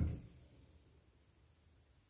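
A shoe thuds once against the drum of a front-loading washing machine as the drum stops turning. The wash then pauses in near silence.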